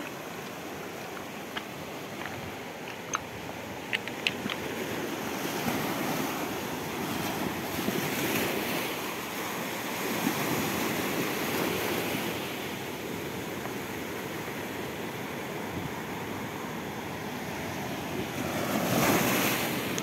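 Sea surf washing onto a rocky, pebbly shore, swelling and easing as the waves come in, with some wind on the microphone. A few light clicks sound in the first few seconds.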